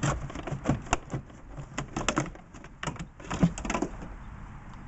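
Plastic knocks and rattles of an E46 BMW's air filter box being worked loose and lifted out of the engine bay, a quick irregular run of clacks that stops about four seconds in.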